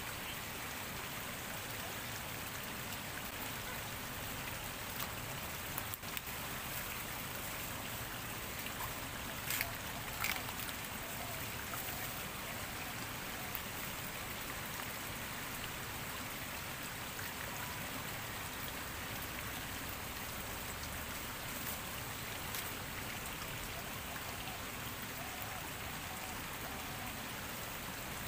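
Shallow stream running steadily over its bed, an even rushing wash of water. A few brief taps stand out around ten seconds in.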